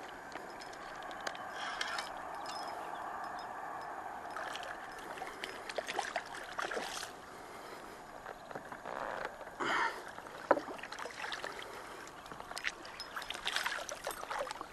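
Water sloshing and splashing close beside a kayak as a hooked sea mullet is played to the surface, with scattered small ticks and knocks.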